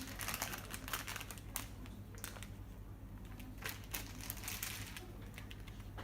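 A bag being handled and crinkling, in two spells of quick crackles: one in the first second and a half, another around the middle, over a low steady hum.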